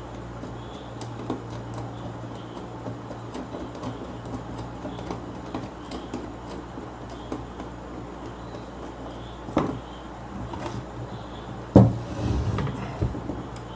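Hand work fitting bolts and nuts to a voltage stabilizer's socket: small scattered clicks and taps of metal parts over a steady low hum. A sharper knock comes about ten seconds in, and the loudest knock a couple of seconds later, followed by brief rustling.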